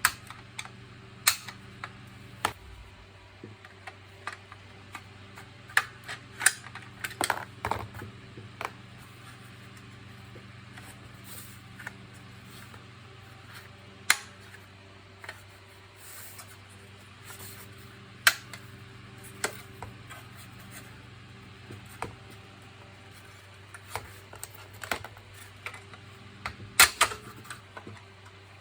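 Irregular sharp clicks and taps of hard plastic vacuum-cleaner housing parts being handled and fitted, in small clusters, over a faint steady hum.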